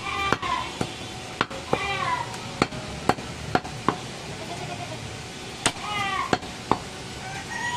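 Butcher's cleaver chopping goat meat and bone on a wooden log chopping block: a dozen or so sharp knocks at an uneven pace, with a pause between about four and five and a half seconds. Three short falling high-pitched calls break in, at the start, about two seconds in and around six seconds.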